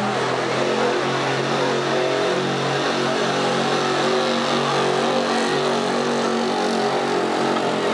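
Gasoline engine of a Chevrolet pickup running hard and steady at high revs under heavy load as it pulls a weight-transfer sled.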